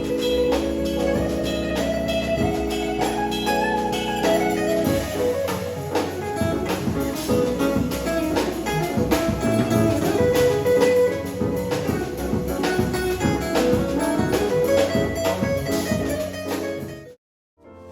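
Jazz music with guitar and drums, playing steadily; it cuts off suddenly near the end.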